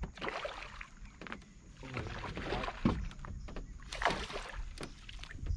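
A redfish thrashing in a landing net at the side of a skiff, with irregular water splashes and a few sharp knocks.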